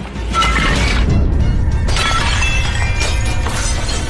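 Glass and tableware shattering and crashing, over loud dramatic music with a heavy low rumble that starts suddenly about a third of a second in.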